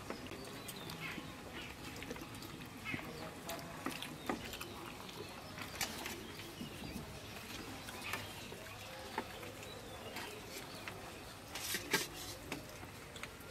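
Quiet mealtime sounds of people eating by hand off plates: scattered soft clicks and knocks of plates and serving dishes, with a louder cluster of clatters near the end as food is served.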